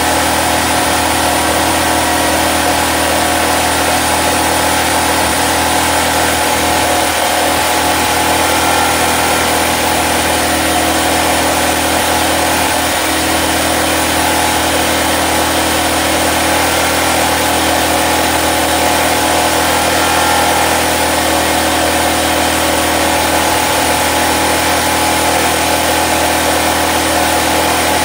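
Portable generator's engine running at a steady speed, a constant drone with a hiss over it.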